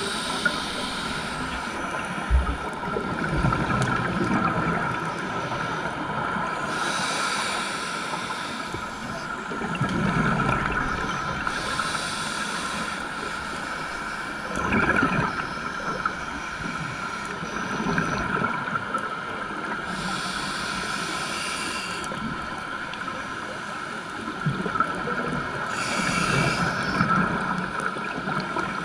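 Underwater sound of a scuba diver's regulator breathing, with a hissing rush of exhaust bubbles every five to seven seconds over a steady hum.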